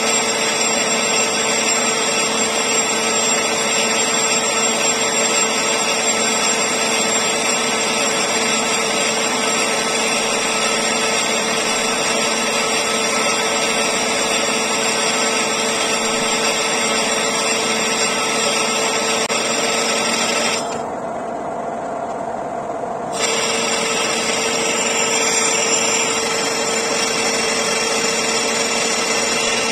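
Metal lathe boring the inside of a large bronze ring: steady cutting noise from the tool shearing off short chips, over the even hum of the running lathe. About two-thirds of the way in, the cutting noise drops away for about two seconds, leaving only the hum, then comes back.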